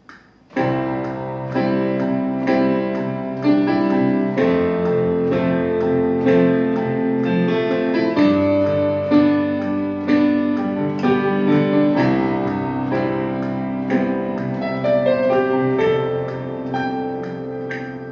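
Sampled piano from a computer sample library, played from a MIDI keyboard controller: a slow chordal passage with a new chord struck about once a second over held notes.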